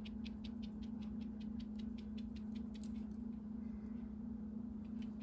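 Pepper grinder being twisted over the chicken, giving a quick run of small ratcheting clicks, about six or seven a second, that stops about three seconds in and starts again near the end, over a steady low hum.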